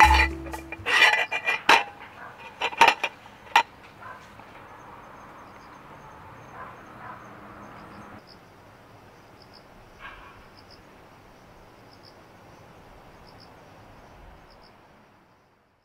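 Metal spoon clinking against metal camp dishes a handful of times, followed by faint outdoor hiss with an insect chirping about once a second, fading out near the end.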